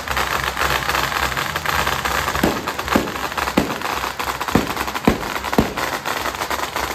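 Busy street noise over a low idling engine. A few seconds in, a steady beat of sharp percussion strikes starts, about two a second.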